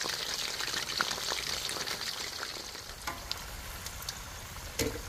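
Chicken feet deep-frying in a wok of hot oil: a steady sizzle with scattered crackles, easing off a little in the second half.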